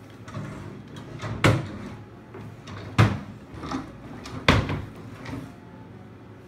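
Wooden dresser drawers being pulled open and pushed shut: three sharp wooden knocks about a second and a half apart, with lighter sliding scrapes between them.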